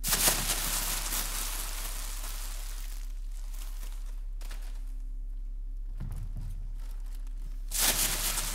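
Two sudden bursts of rustling, hissing noise, one lasting about three seconds from the start and another starting near the end, over a steady low electrical hum.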